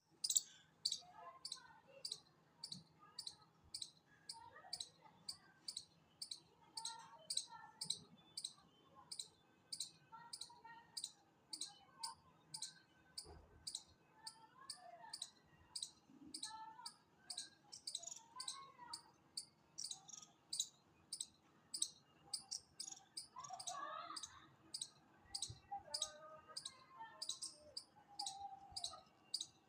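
A chipmunk giving a long, steady run of sharp, high-pitched chip calls, about two a second, without a break.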